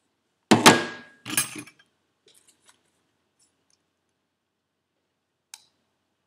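Metal objects clattering down on a hard surface: a loud clank with a brief metallic ring, a second clatter about a second later, then a few light ticks and a single small click near the end.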